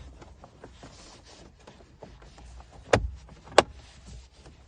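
Plastic dashboard switches and trim being pressed back into place: two sharp clicks about half a second apart, with light handling rattles between them.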